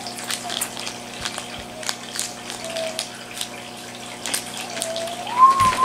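Plastic wrapping of a Shopkins blind package crinkling and crackling as it is torn open by hand, in short irregular crackles. A faint pitched tone runs underneath and rises in pitch near the end.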